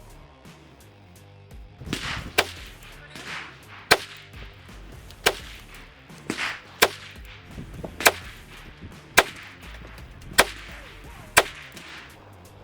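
9mm Glock pistol fired in slow, steady single shots, about eight sharp cracks roughly a second or so apart.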